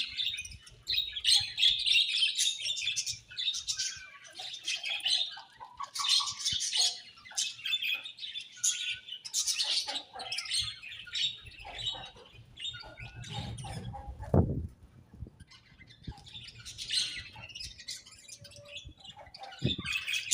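A colony of budgerigars chattering and chirping in quick overlapping bursts, with a short lull about two-thirds of the way through. A single dull low thud sounds near the middle of that lull.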